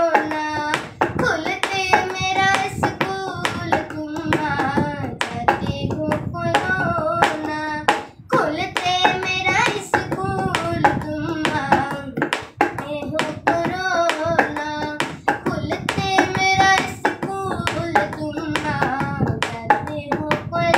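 A boy singing a Hindi song unaccompanied, his voice wavering in pitch through held notes, over a steady beat tapped out by hand.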